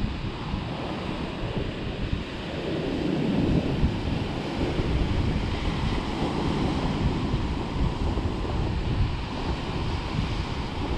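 Sea surf breaking and washing along a rocky shore, with wind buffeting the microphone; the wash swells louder about three seconds in.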